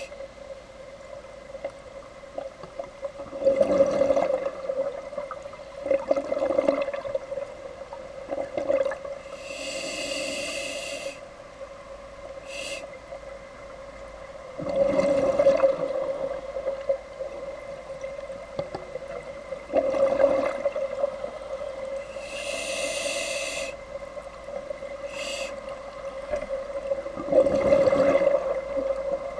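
Scuba diver breathing through a regulator underwater, heard at a spacing of a few seconds: hissing inhalations and bubbling exhalation surges over a steady low hum.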